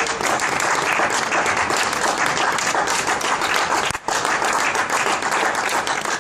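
Crowd applauding: many hands clapping in a dense, steady patter, with a short lull about four seconds in.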